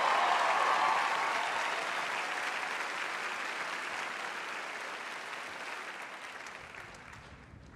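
Large theatre audience applauding, the applause fading away gradually.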